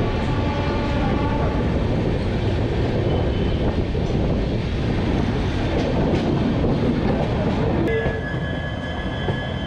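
Passenger train coaches running on the track, heard from an open coach doorway: a steady rumble of wheels and rails. About eight seconds in, thin high squealing tones from the wheels come in as the train runs into the station.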